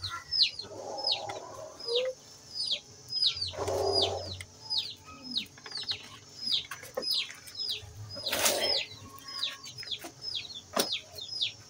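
Chicks peeping: a steady run of short chirps, each falling in pitch, about two a second, with a few lower, louder calls mixed in. A single sharp knock comes near the end.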